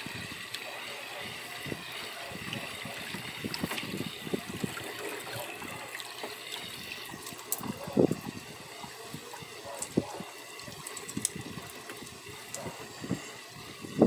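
Water splashing and trickling in a tilapia tank as a hand net is worked through it, with irregular thuds and splashes. The loudest splash comes about eight seconds in.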